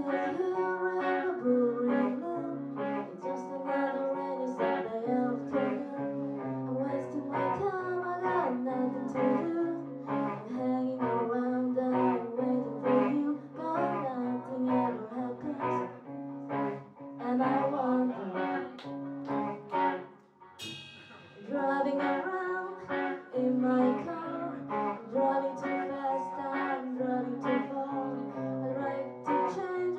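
Live rock band playing a song: singing over guitar, bass and drums, with a brief break about twenty seconds in before the band comes back in.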